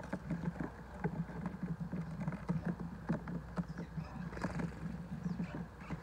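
House sparrows pecking at food on a plate, making quick, irregular tapping clicks, with a low hum underneath.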